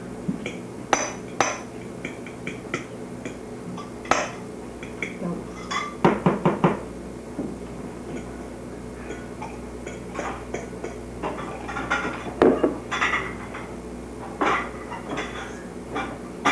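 Dishes and cutlery clinking and clattering at irregular moments during a meal, with a few quick clusters of knocks. A steady low hum runs underneath.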